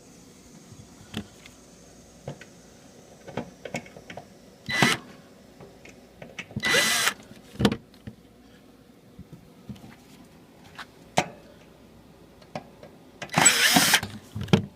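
Power drill-driver backing screws out of the back of a window air conditioner's case in three short runs: a brief one about five seconds in, a longer one about two seconds later, and the longest near the end. Light clicks and knocks of handling between the runs.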